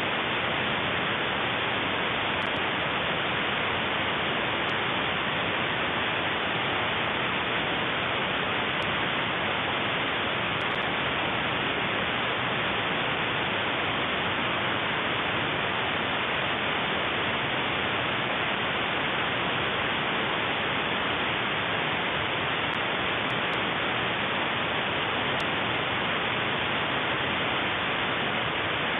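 Shortwave radio static: an even, unchanging hiss from the receiver with no station audio coming through.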